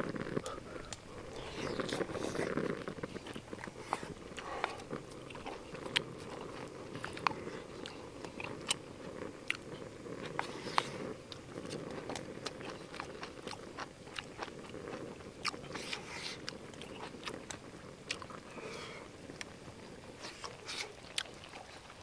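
Close-miked chewing of braised kimchi with pork belly, a steady low rustle with many short, sharp mouth clicks and bites scattered through it.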